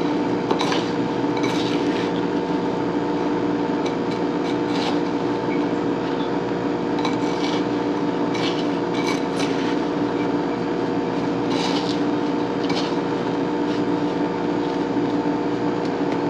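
A silicone spatula stirring frozen blackberries and sugar in a glass bowl, with irregular scrapes and small clicks of the fruit against the glass, over a steady hum.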